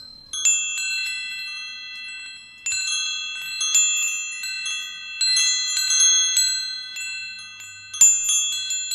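Bright metallic chimes ringing in several clusters of clear high notes. Each cluster starts at once and slowly fades as the next is struck, with a sharp strike about eight seconds in.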